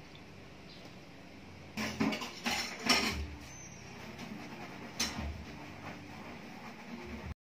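Light clicks and clatter of kitchen tongs against foil paper plates: a cluster of knocks between about two and three seconds in and one more about five seconds in, over a faint hiss.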